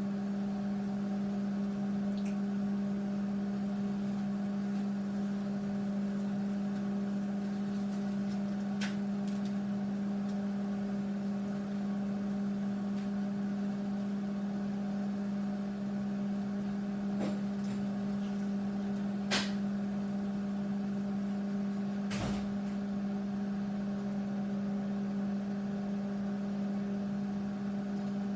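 Panasonic microwave oven running: a steady low hum, with a few short clicks, the most distinct about 19 and 22 seconds in.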